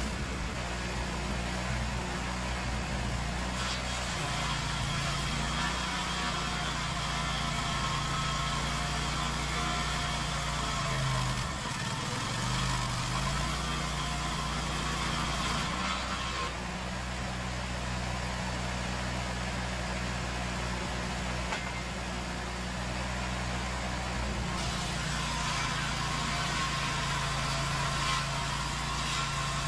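Wheel loader engine running steadily, its pitch shifting up and down a few times as the machine works.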